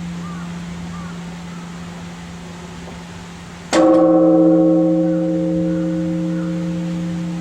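Large Japanese temple bell (bonshō), one of Edo's three great temple bells, struck once by its wooden beam about four seconds in. Before the strike the low hum of the previous stroke is fading; after it the bell rings with a deep hum and layered overtones that slowly die away.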